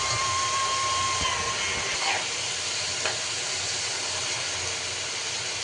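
Food sizzling steadily in hot oil in a pan, with a couple of faint ticks. A thin whistle-like melody fades out in the first second and a half.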